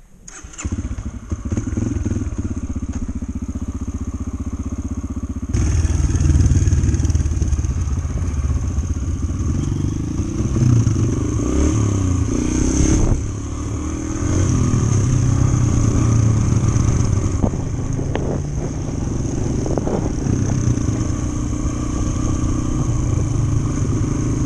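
Yamaha TT-R125 dirt bike's single-cylinder four-stroke engine running close to the microphone: steady for the first five seconds, then louder from about five and a half seconds in, with the revs rising and falling as the bike rides along a dirt road.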